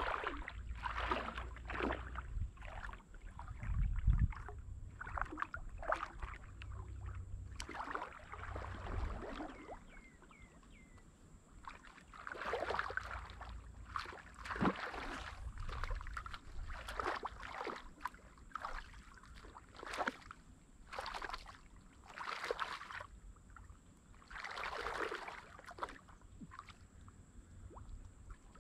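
Water splashing and swishing in irregular strokes, one every second or two, with a low rumble in the first ten seconds.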